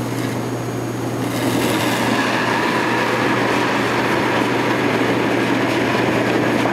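Granite curling stone running down the pebbled ice with a steady rolling rumble, building about a second in as it is delivered, over a constant low hum.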